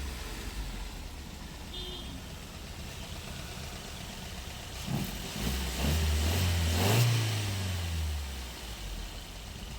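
Maruti Suzuki Ertiga four-cylinder petrol engine idling, then revved once about halfway through, its pitch rising and falling back to idle. It is running on all cylinders after repair work to cure a bad misfire.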